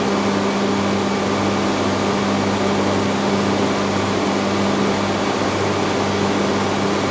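Steady, loud drone of running machinery with a constant low hum.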